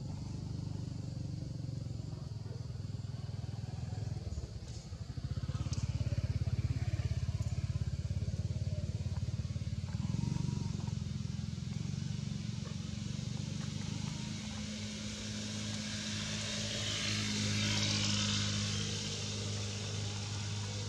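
A motor engine running steadily, its low hum growing a little louder about five seconds in, with a hiss that swells and fades near the end.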